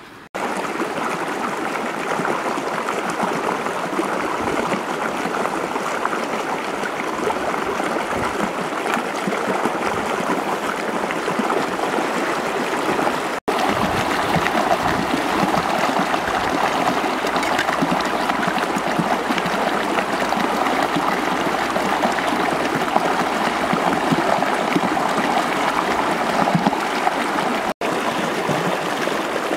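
Shallow river running over rocks: a steady rush of flowing water that breaks off for an instant twice.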